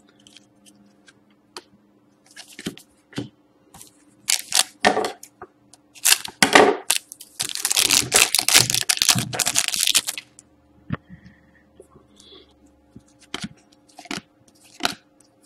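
Foil wrapper of a Panini Select hockey card pack crinkling and being torn open, the loudest stretch a dense crackling lasting about three seconds midway through. Near the end, a few short swishes of cards being slid apart.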